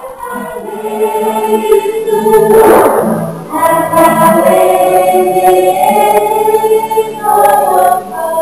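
Background music of a choir singing long held chords, with a short rushing swell about two and a half seconds in.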